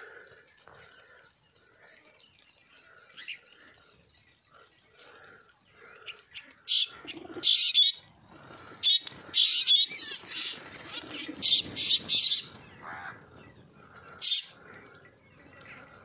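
A flock of small wild birds chirping and calling. The calls are sparse at first, then come thick and loud in the middle before thinning out again.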